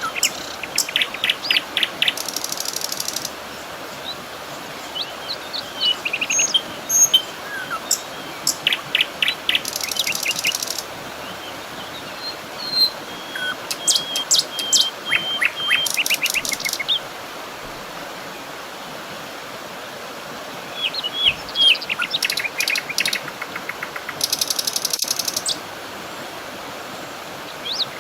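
Several songbirds chirping and singing fast trills in bursts, with short pauses between, over a steady background hiss.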